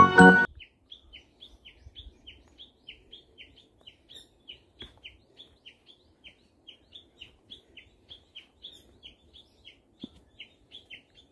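A bird chirping over and over: short, high notes at about three a second, each sliding down in pitch.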